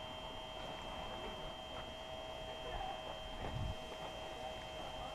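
A few footsteps on a gravel path, with one heavier low step about three and a half seconds in, over a steady high-pitched hum.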